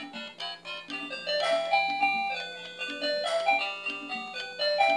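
Doraemon toy cash register playing a simple electronic melody, a steady run of short notes with a repeating figure.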